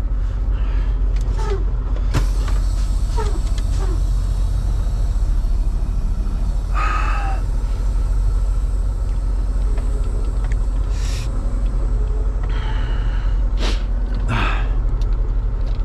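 Volvo semi-truck's diesel engine rumbling low and steady inside the cab as the truck creeps across a muddy lot, with a few brief squeaks and hisses over it.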